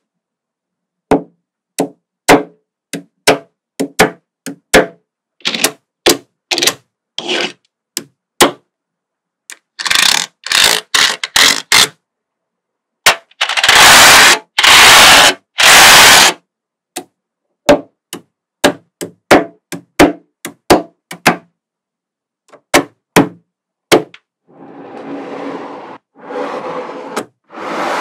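Small neodymium magnetic balls clicking and clacking as rows of them are snapped together and set into place, one sharp click at a time for the first several seconds. Around halfway there is a quick run of denser rattling, then three loud noisy bursts of about a second each, and near the end a longer rattle of many balls shifting at once.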